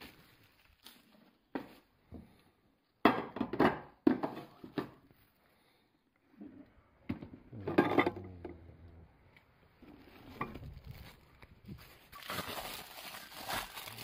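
Handling noises of food containers in and around a Makita cordless cooler/warmer box: clicks, knocks and clinks, the loudest about three to five seconds in and again around eight seconds, then plastic wrap crinkling near the end.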